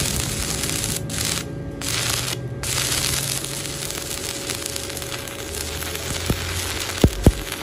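Stick-welding arc from an E6013 electrode on iron rod, crackling and sizzling steadily as the bead is laid. It breaks off briefly a few times in the first three seconds, and three sharp spatter pops come near the end.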